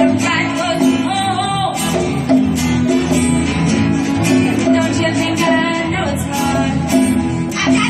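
Live band music: guitar playing with steady hand percussion struck over it.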